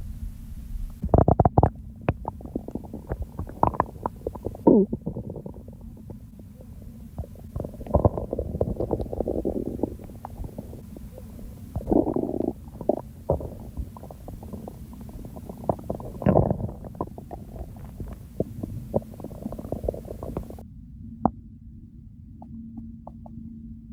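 A person's stomach and intestines gurgling and rumbling, with irregular gurgles, pops and short bubbling runs and one falling squeal about four seconds in. The sounds die down to a few faint pops near the end.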